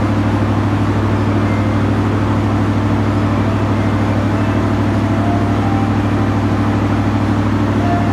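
Steady low drone of a train's diesel engine, holding one pitch with no rise or fall.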